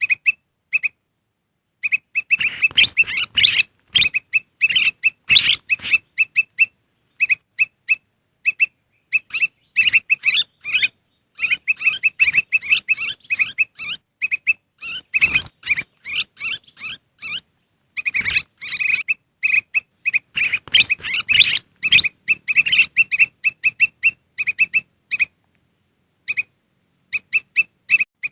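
Kutilang emas (a bulbul) calling on a bird-lure recording: fast runs of short, evenly spaced chirps, broken by bursts of dense, excited chattering and a few short pauses.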